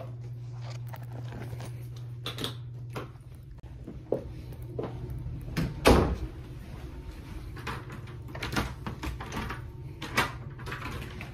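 Knocks, rustles and clicks of a phone being carried while walking, with a door thud about six seconds in as the loudest sound. A steady low hum runs under the first few seconds and then stops.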